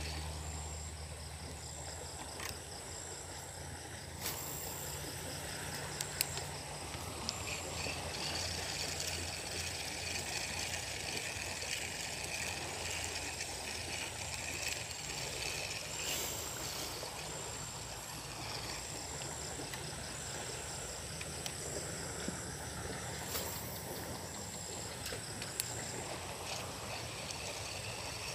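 Insects chirping in a steady repeating pattern, a high chirp about once a second, over a low hum, with a few sharp clicks.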